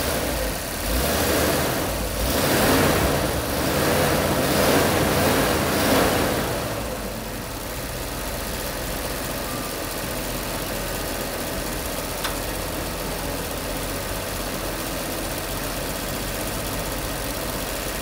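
Ford 300 cubic-inch (4.9-litre) inline-six, just started, running with a few swells in engine speed for about the first six seconds, then settling into a steady idle.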